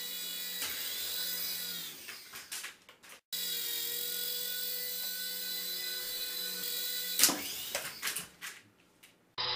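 Small toy RC helicopter's electric motor and rotors whining steadily as it hovers, a high, drill-like whine of several tones. The pitch wavers and bends as it moves about, with a single sharp knock about seven seconds in, and the whine fades out near the end.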